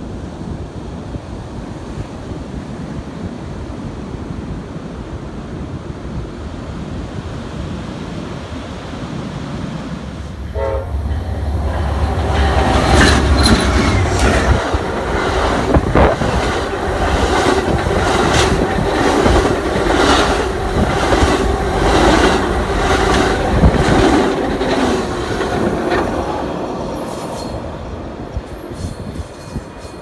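Ocean surf and wind on the microphone for about the first ten seconds. Then an Amtrak passenger train of bilevel cars passes close by: a sudden heavy rumble, a steady clatter of wheels over the rail joints about once a second with steady tones above it, and a fade as the train draws away near the end.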